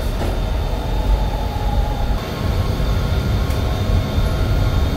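Subway train car running, heard from inside the carriage: a steady low rumble with a faint high whine.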